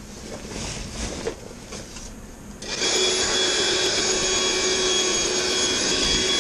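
Electric air pump starting abruptly about two and a half seconds in and running steadily with a constant whine, inflating an airbed. Before it starts, soft rustling as the airbed is handled.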